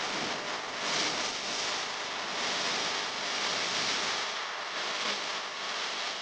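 Steady rushing noise, swelling and easing every second or two, with no clear birdsong standing out.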